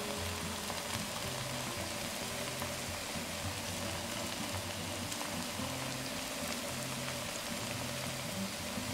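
Grated-potato pancakes shallow-frying in oil in a pan, a steady sizzle.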